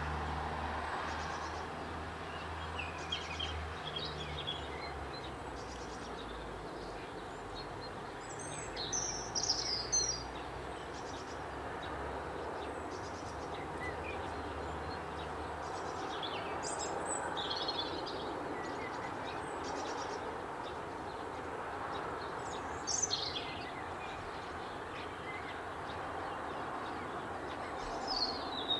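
Short bird chirps and calls every few seconds over a steady outdoor background noise. A low hum underneath stops about halfway through.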